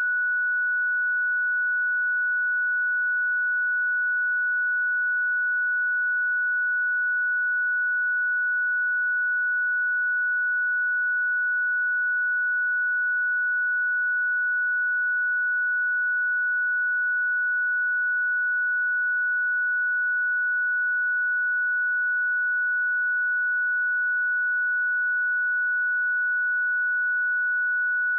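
A pure 1473 Hz sine-wave test tone, one steady unchanging high-pitched tone.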